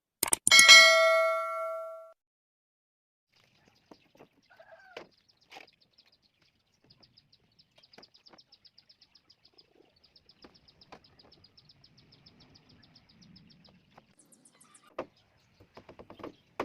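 A single metallic strike that rings out with a clear ding and fades over about a second and a half. It is followed by faint scattered clicks and a light, fast ticking.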